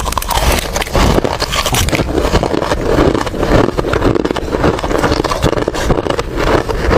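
Ice being bitten and crunched between the teeth close to the microphone: a dense, unbroken run of cracking and crackling.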